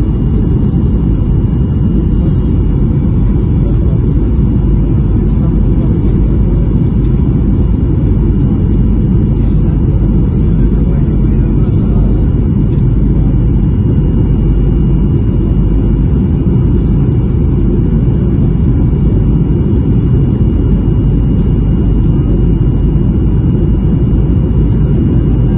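Steady low rumble of engine and airflow noise inside a jet airliner's cabin on its approach, with a faint thin whine above it.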